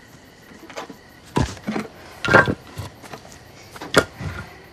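A few dull knocks and thuds of handling in a small room, the loudest a little after two seconds in, then a sharp click about four seconds in.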